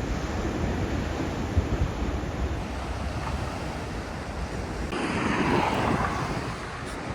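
Wind buffeting the microphone over the steady rush of sea surf, with a louder rush that swells and fades about five seconds in.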